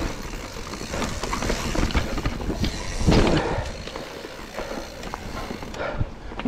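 Mountain bike rolling over rocky singletrack: tyres crunching over rock and dirt, and the bike rattling with a run of quick knocks. There is a louder, rougher stretch about three seconds in.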